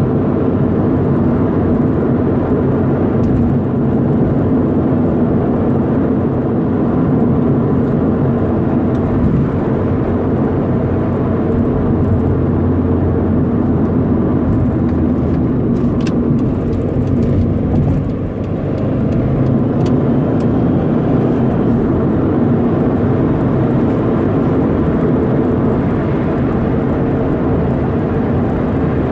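Stock 2011 Subaru WRX's turbocharged flat-four engine running steadily, with a brief drop in level about two-thirds of the way through.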